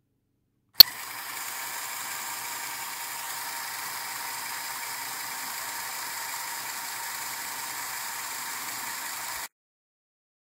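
Lego Technic chain-and-sprocket gear model driven by a Lego Powered Up electric motor. After a sharp click about a second in, the motor, plastic chain and sprockets run with a steady whir, which cuts off abruptly near the end.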